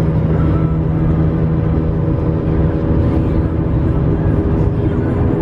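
Car running at highway speed, heard from inside the cabin: a loud, steady low hum with several held tones over road rumble. The car is making a loud noise that is a known problem.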